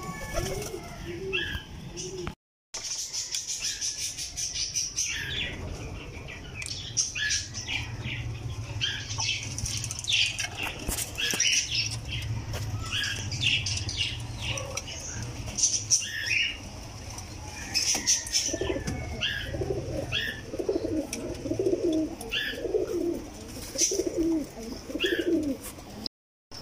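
Domestic pigeons in a loft: wings flapping and clattering, with low, repeated pigeon cooing, strongest in the last several seconds.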